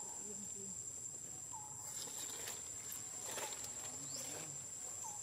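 Steady high-pitched insect drone, with a few short chirps spaced more than a second apart and faint rustles about halfway through.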